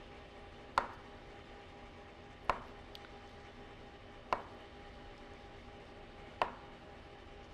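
Kitchen knife slicing through soft roasted butternut squash and tapping the wooden cutting board at the end of each cut: four sharp taps about two seconds apart.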